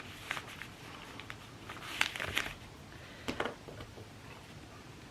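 Scissors cutting through denim, a few short crisp snips about half a second in, around two seconds in and again near three and a half seconds, with quiet fabric handling between them.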